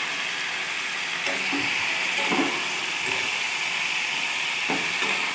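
Raw chicken pieces sizzling in hot mustard oil with onions in a kadai, a steady hiss. A few light knocks sound as the pieces are stirred in the pan.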